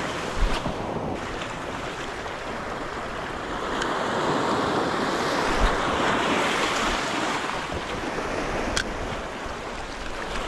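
Sea surf washing and breaking over shoreline rocks, with wind buffeting the microphone. A couple of brief knocks and a sharp click stand out over the surf.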